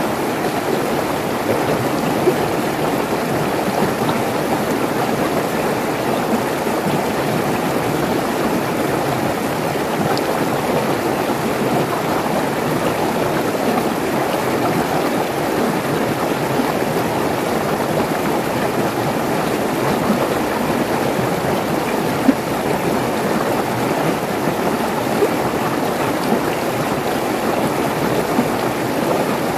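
Mountain stream rushing and splashing over rocks in small cascades, a steady, even rush of water.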